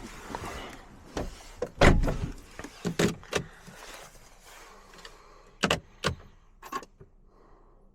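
A series of sharp knocks and clunks, the loudest about two seconds in, over a faint hiss that fades away in the second half.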